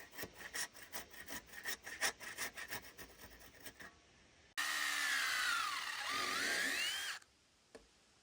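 Wood being sawn: a run of quick, uneven strokes, then a louder power saw cutting, its pitch sagging under load and rising again before it stops abruptly.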